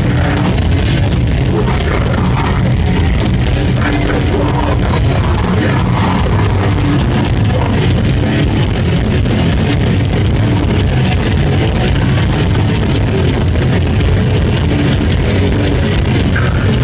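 Death metal band playing live: distorted electric guitars, bass and drum kit, loud and dense, recorded from within the crowd.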